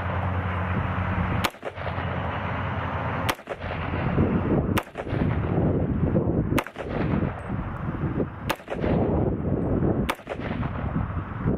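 Six single shots from a 300 Blackout AR-15 pistol (Bear Creek Arsenal upper on a PSA PA-15 lower) firing supersonic American Eagle 150-grain full metal jacket rounds, spaced about one and a half to two seconds apart. The gun cycles each round without a malfunction.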